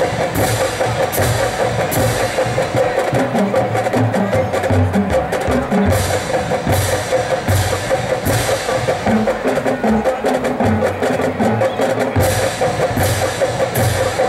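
Marching drumline playing together: dense snare and tenor drum patterns over pitched bass drums stepping through runs of different notes, with cymbal crashes every second or so in places.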